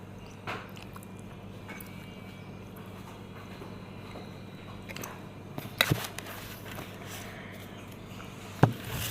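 A person eating noodles and egg: quiet chewing with a few short sharp clicks, the loudest near the end, over a steady low hum.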